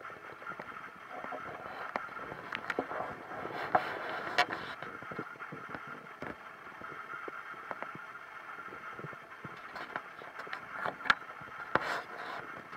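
Stomach gurgling and rumbling: irregular small pops, clicks and gurgles from the digestive tract, with sharper pops about four and eleven seconds in.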